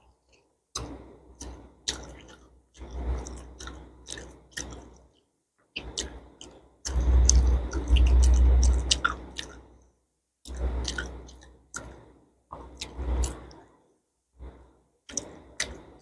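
Close-miked chewing and eating of food, with wet mouth clicks and smacks. The chewing comes in bursts of one to three seconds, each separated by a brief, abrupt silence.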